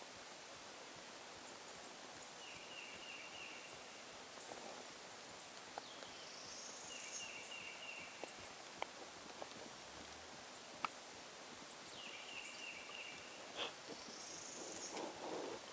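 Songbirds singing faintly: a high rising note and a short run of about six quick even notes, the phrases coming back every few seconds. A few sharp clicks are heard, and there is a brief rustle of leaves near the end.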